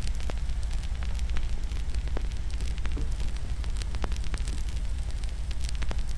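Wood fire crackling in a fireplace: a steady low rumble of the burning fire with irregular sharp pops and snaps scattered throughout.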